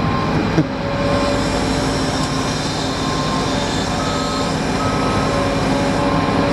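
Diesel engines of heavy construction machines running steadily, with a backup alarm beeping about once a second and a second, higher-pitched backup alarm joining about four seconds in. A brief knock sounds about half a second in.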